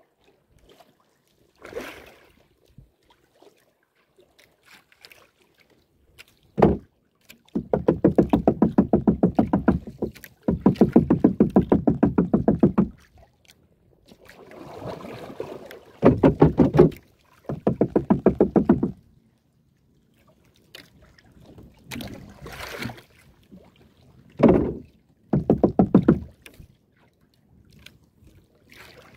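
Small wooden outrigger canoe being paddled on choppy sea: a few sharp paddle splashes and knocks, and several bursts of a fast, even rattling buzz lasting two or three seconds each.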